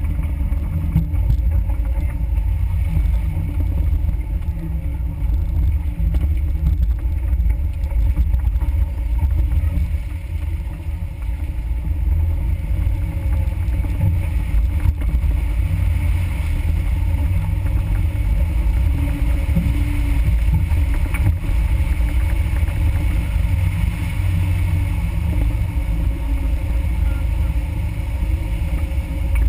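Suzuki Samurai engine and drivetrain rumbling steadily at low trail speed as the 4x4 crawls over a rough dirt trail, picked up by a vehicle-mounted GoPro. The sound is mostly deep rumble, easing a little about a third of the way in.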